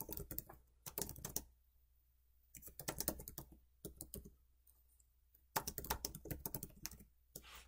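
Computer keyboard typing in three short runs of keystrokes, with silent pauses of about a second between them.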